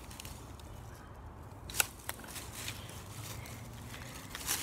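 Rustling and crunching of dry leaves and twigs underfoot, with a couple of sharp cracks about two seconds in.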